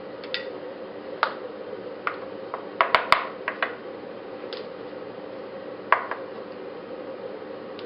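CNC-converted BF20 Vario milling machine running with a steady hum. About a dozen irregular sharp metallic clicks and clinks sound over it, bunched together around the middle.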